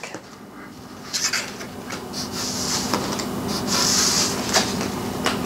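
Playing cards being handled on a table: soft sliding rustles of card stock, two longer ones near the middle, and a few sharp taps and clicks as cards are drawn and set down. A faint steady hum lies underneath.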